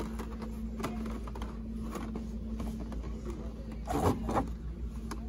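Store background: a steady low electrical hum with faint handling clicks and rustles, and a brief distant voice about four seconds in.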